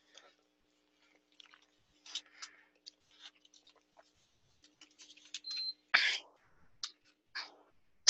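Mouth and breath noises picked up close on a headset microphone: scattered small clicks, chewing-like sounds and short breaths or sniffs, with two louder sniffs or breaths about six seconds in and at the very end, over a faint steady electrical hum.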